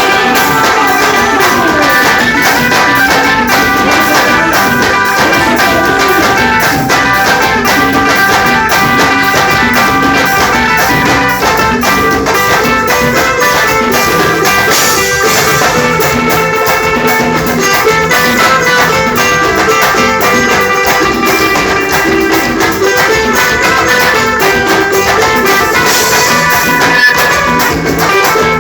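Live music from a Reisado group, a Bahian folk ensemble: sustained melody notes over a fast, steady percussion beat, continuous and loud.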